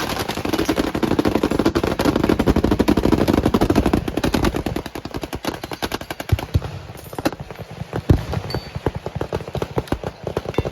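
Machine-gun fire in rapid automatic bursts. It is dense for the first four seconds or so, then thins to scattered shots and short bursts toward the end.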